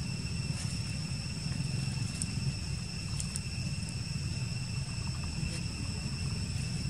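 Outdoor ambience: a steady insect trill held at several high pitches over a continuous low rumble, with a few faint clicks.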